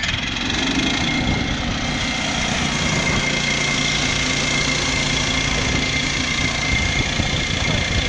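Woodland Mills HM122 portable band sawmill running at a steady speed as its band blade cuts into a fir log. The small gasoline engine runs under the steady high whine of the blade, which grows more distinct partway through.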